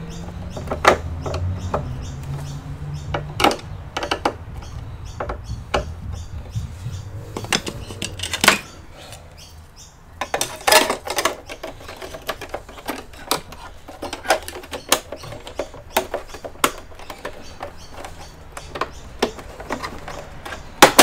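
Irregular sharp clicks and taps of plastic and metal computer parts being handled and fitted back together on an Asus all-in-one PC. A low hum runs under the first eight seconds or so, then stops.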